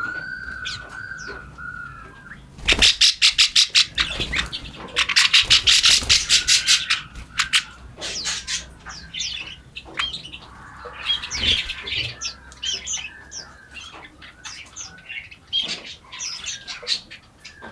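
Several forest birds calling and chirping. Near the start there are short arched whistled notes. Two loud, rapid runs of pulses follow, about eight a second, the first about three seconds in and the second from about four and a half to seven seconds, and scattered high chirps carry on after them.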